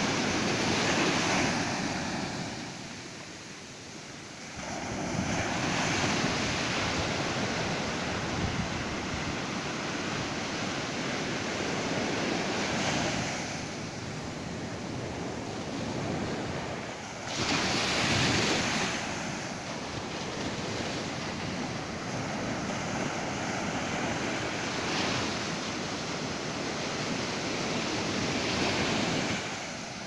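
Ocean surf breaking on a sandy beach: a steady wash of waves that swells and eases every few seconds as each wave breaks and runs up the sand. The loudest surge comes a little past the middle.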